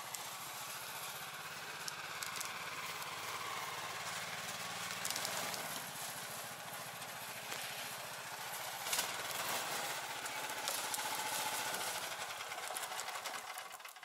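Rybak tracked motor tower (a motorized snow dog) running steadily as it crawls through snow, with a sharp knock about nine seconds in; the engine cuts off just before the end.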